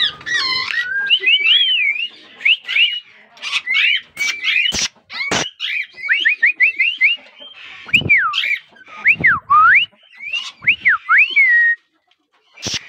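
Caged plum-headed and Indian ringneck parakeets calling: a busy run of quick chirps and sweeping whistles that dip and rise in pitch. A few sharp knocks or flaps come in among them.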